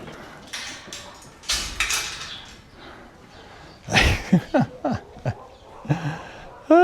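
A quick run of six short animal calls, each falling in pitch, about four seconds in, after a few seconds of rustling.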